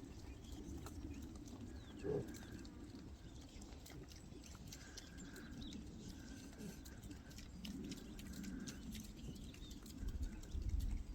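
Pig eating with loud, wet smacking, a rapid scatter of chewing clicks, and one short, louder sound about two seconds in.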